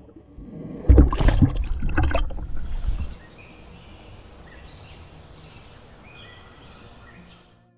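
Lake water splashing and sloshing around an action camera as it goes under the surface, for about two seconds, then a faint steady hiss with a few faint high chirps.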